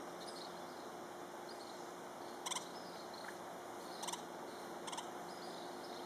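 Hispaniolan woodpecker giving three short, harsh, rapidly pulsed calls in the second half, spaced about one to one and a half seconds apart, over a faint steady background.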